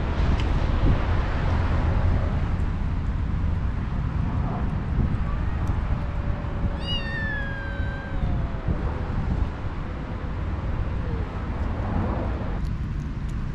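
A cat meowing once about seven seconds in, a single falling call lasting about a second, over a steady low rumble of wind on the microphone.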